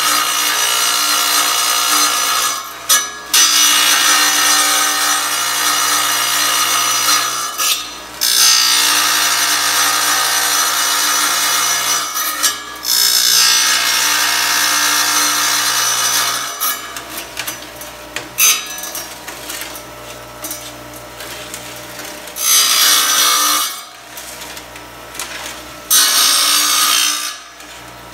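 Tabletop tile saw's diamond blade grinding through ceramic tile in a series of passes for close parallel relief cuts that rough out a circle. Each cut is a loud grinding over the motor's steady hum, dropping back to the hum in the short gaps between passes. The second half is quieter, with two short cuts near the end.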